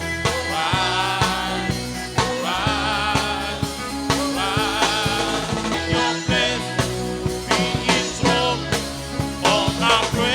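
Gospel worship song: a sung melody with vibrato over a backing band and drums.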